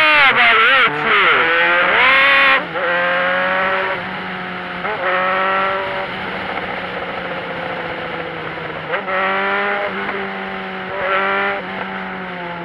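Vehicle engine drone heard from on board while driving on the highway, a steady hum whose pitch drops near the end as the engine slows. A louder pitched sound wavers up and down over it for the first couple of seconds and briefly a few times later.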